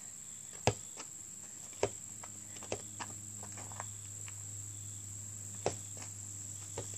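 Steady high chirring of crickets, with five sharp knocks of a basketball striking the portable hoop and bouncing, the loudest about a second in.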